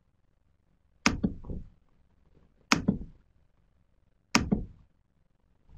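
Sharp clicks and taps close to the microphone from working a computer, in three quick clusters of two or three strokes about every second and a half.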